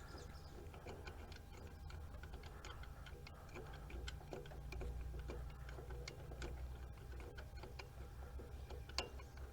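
Socket ratchet clicking in short runs while a long starter mounting bolt is backed out, with a sharper click just before the end and a low steady hum underneath.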